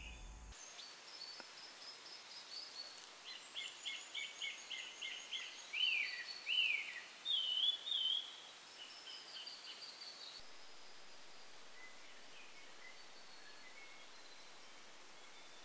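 Forest birds singing: a quick run of clear repeated notes, then a few loud sweeping, falling whistles. After that only faint, scattered calls over a quiet steady hiss.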